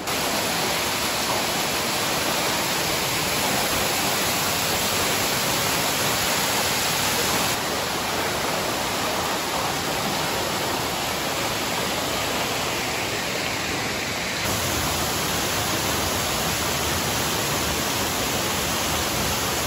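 Waterfalls and a stream cascading over rock: a steady rush of falling water. Its level and tone shift slightly twice, about a third and two-thirds of the way through.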